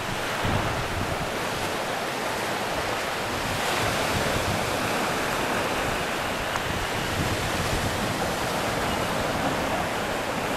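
Surf breaking on a sandy beach, a steady wash of waves, with wind buffeting the microphone.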